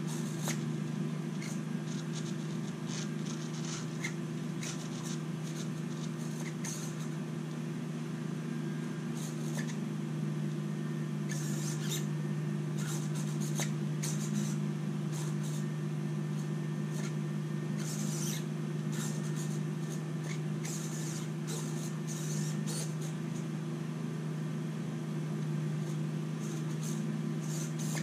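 Small hobby servos on an RC crawler's camera gimbal whirring in short, scattered bursts as they move the mount, over a steady low hum from the powered-up rig. The gimbal's response is not yet set up correctly.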